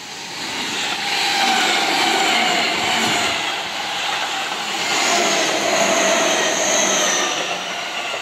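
Seibu 30000 series electric train passing close by: the noise of its wheels on the rails with the whine of its electric traction motors drifting slowly in pitch. It swells over the first second and stays loud as the cars go by.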